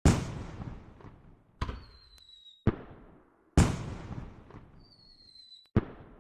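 Firework sound effect: five sharp bangs at uneven intervals, each fading away over about a second. Two of the bangs are each led in by a short, high whistle that falls slightly in pitch.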